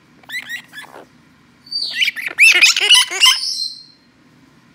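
Blue-crowned conure calling: a few short chirps in the first second, then a loud burst of rapid, high calls lasting about two seconds.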